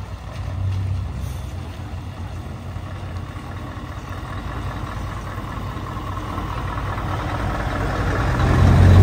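Scania R580 lorry's V8 diesel engine running as the truck drives slowly up the lane toward the listener. It grows steadily louder, loudest near the end as it passes close by.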